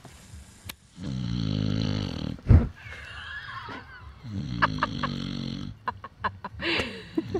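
A sleeping man snoring: two long snores about three seconds apart, with a third beginning at the end. Sharp campfire crackles fall in the gaps, and there is one loud thump between the first two snores.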